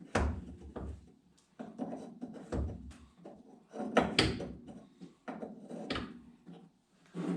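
Irregular metallic knocks, clicks and scrapes of hand tools working a hydraulic line fitting loose on a semi truck's cab-lift system, with a few sharper knocks among lighter handling noises.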